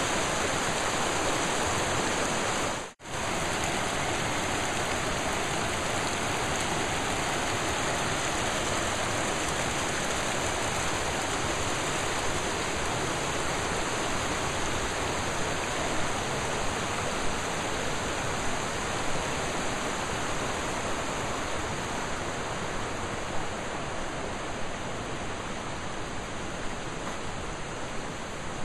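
Shallow, fast mountain river rushing over rocks and gravel in small rapids: a steady rush of water that cuts out for a moment about three seconds in and grows a little fainter near the end.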